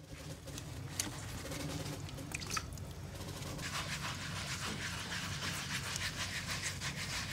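A half piece of doodlebug scrub pad worked by hand over wet teak decking soaked in teak cleaner: a steady wet rasping of scrub strokes sets in about three and a half seconds in, after a few drips and small splashes of liquid at the start.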